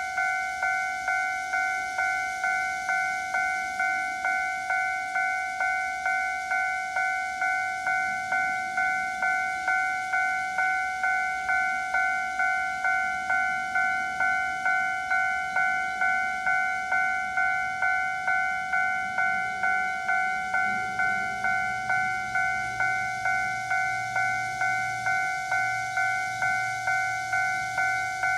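Level crossing warning bell ringing, a steady electronic ding-ding repeated about twice a second, the signal that a train is approaching and the barriers are down.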